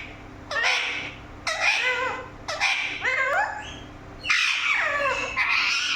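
Pet parrot calling, about four separate harsh calls of roughly a second each with wavering, bending pitch.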